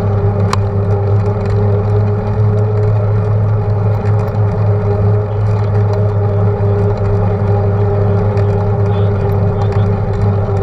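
Steady wind and road rumble on a bicycle-mounted camera riding along asphalt, a constant low rush with a steady hum over it. One sharp click about half a second in.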